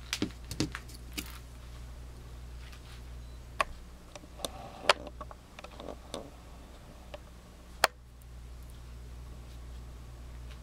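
Small metallic clicks and taps of Swiss Army knives being handled, a quick cluster at the start and then single clicks every second or two, over a steady low hum.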